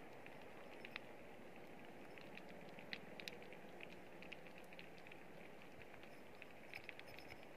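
Faint, irregular crackling and ticking over a low steady hiss from shallow water among shore rocks at night.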